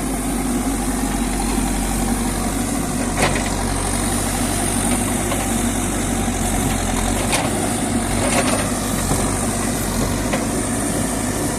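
JCB backhoe loader's diesel engine running steadily, as at idle, with a few brief sharp knocks scattered through.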